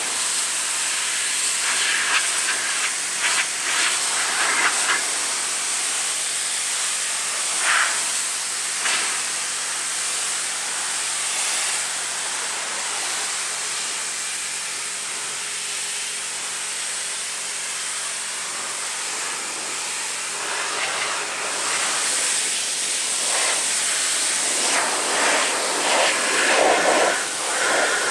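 Pressure washer jet spraying onto a car's door panels and side mirror: a steady hiss of high-pressure water, with short louder splatters as the jet strikes the panels, blasting off grime and moss.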